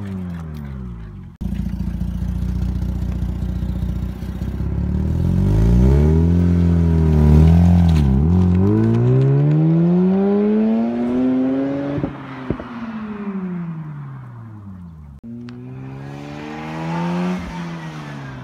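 Mazda RX-8's Renesis twin-rotor Wankel engine and exhaust, its note rising under acceleration and revs, dipping briefly about eight seconds in, then falling away and rising and falling again. The note breaks off abruptly a few times.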